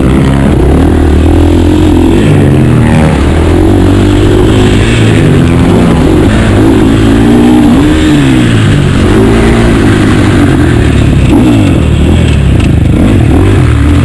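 KTM two-stroke motocross engine revving hard, its pitch rising and falling over and over with the throttle and gear changes, so loud it overloads the microphone.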